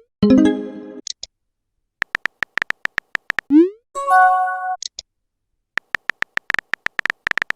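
Phone messenger sound effects: runs of quick keyboard-tap clicks, each ending in a short rising swoosh of a message being sent, followed by a bright chime of a new message arriving. The cycle runs twice: a chime just after the start, taps about two seconds in, a swoosh and chime at about three and a half to four seconds, then taps again ending in a swoosh at the very end.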